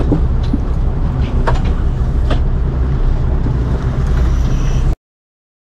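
Dive boat's engine running with a steady low rumble, with a few light clinks of dive gear; the sound cuts off abruptly near the end.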